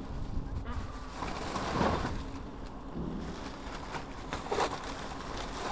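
Rustling and handling noise while rummaging through rubbish bags in a bin, with two louder rustles about two seconds in and near the end, over a low rumble of wind on the microphone.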